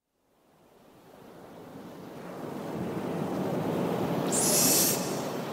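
Recorded ocean surf fading in from silence and swelling steadily, with a wave breaking in a bright hiss about four and a half seconds in.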